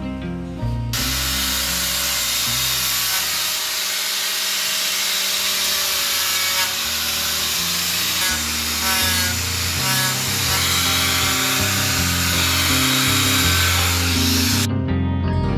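Handheld power sander with a sanding disc running against the carved rim of a wooden vase, a steady grinding hiss over background music. The tool starts about a second in and stops shortly before the end.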